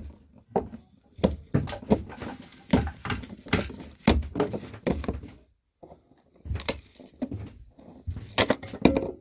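Irregular knocks and thumps on the converted bus's sheet-metal roof around a freshly cut hole, about one or two a second, with a short pause about halfway through.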